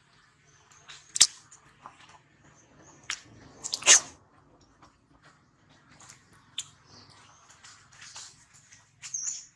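Long-tailed macaques grooming at close range: scattered sharp clicks and soft rustling, the loudest clicks about a second in and about four seconds in. A few short high bird chirps sound in the background.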